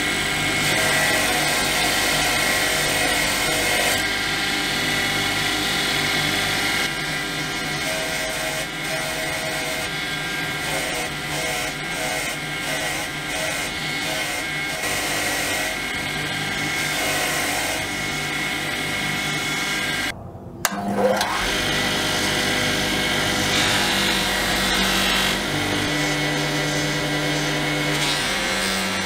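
Electric bench grinder running with a small brass part held against its spinning wheel. About two-thirds through the sound breaks off briefly, then a buffing motor runs as a bar of green polishing compound is pressed onto its buffing wheel.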